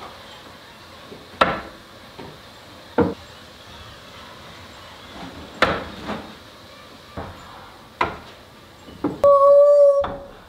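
Wooden cabinet sections knocking against each other as they are set and adjusted by hand: several sharp wood-on-wood knocks a second or two apart. Near the end comes a short steady beep, the loudest sound.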